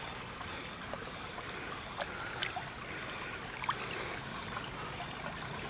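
Shallow stream water flowing over pebbles, a steady rush, with a few faint ticks and a steady high-pitched whine above it.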